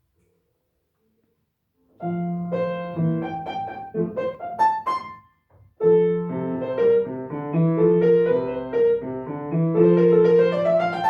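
Solo acoustic piano playing a classical piece. It starts about two seconds in with sustained bass notes under a moving melody, breaks off briefly about halfway, then goes on with a rising line near the end.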